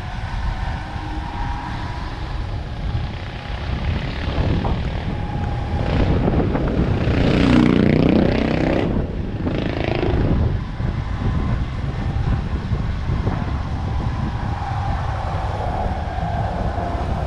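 Motorcycle riding along a lane: its engine running under a steady low wind rumble on the microphone, with a louder swell about seven to ten seconds in.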